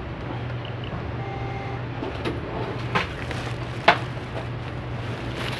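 Checkout-counter sounds over a steady low hum: a faint short beep, then a few sharp clicks and knocks, the loudest about four seconds in.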